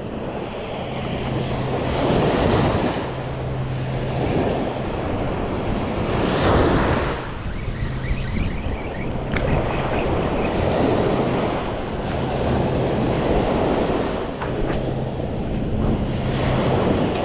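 Small surf waves breaking and washing up over a sandy beach at the water's edge, the rush swelling and ebbing every four seconds or so, with wind buffeting the microphone.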